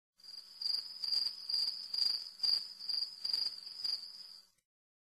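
Crickets chirping: a high, steady trill that swells and fades about twice a second, then cuts off suddenly near the end.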